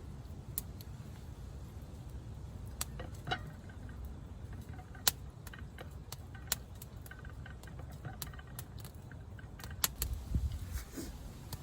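Campfire crackling: irregular sharp clicks and pops over a low steady rumble.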